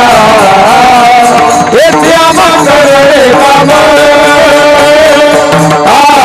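Kirtan music: a devotional abhang sung in long held, slightly wavering notes with a few sliding turns, over instrumental accompaniment.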